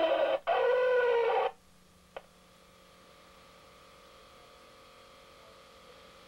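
A loud pitched call in two parts for about a second and a half, then a faint steady mains hum with a single click about two seconds in.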